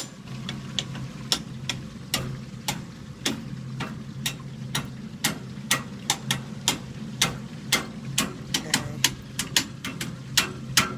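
Furnace clicking: sharp, irregular clicks, slow at first and coming faster toward the end, over a steady low hum. The owner thinks the clicking may come from a valve or the pipes.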